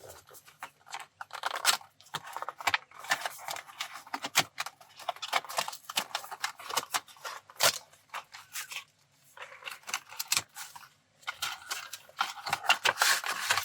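A cardboard retail box being opened and its packaging handled: irregular rustling, scraping and sharp little clicks and taps, in clusters with short gaps between.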